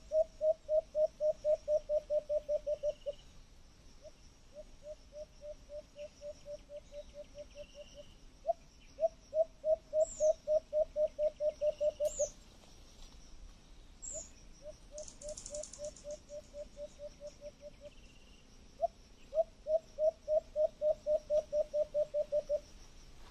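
An animal calling in runs of quick, evenly spaced low notes, about five a second, each run lasting three to four seconds. Louder runs alternate with fainter ones, over faint high chirps.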